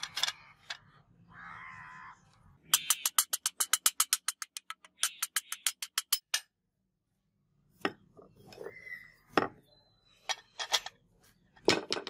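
Rapid hammer taps on a wooden sword handle block, about seven blows a second in two quick runs, driving the block down the tang toward the brass guard. A few single knocks follow, and a crow caws in the background near the start.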